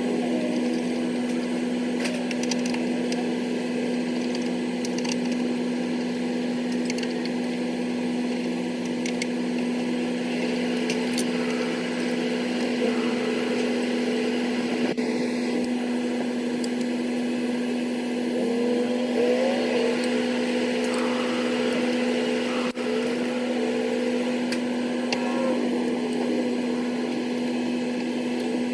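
Steady machinery hum with scattered clicks, knocks and rattles from hand tools and metal parts as a condenser fan motor is unbolted and changed.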